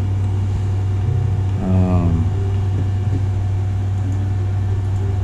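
Steady low hum of a running HP Z420 workstation's cooling fans, with its case open. A person makes a short wordless vocal sound about two seconds in.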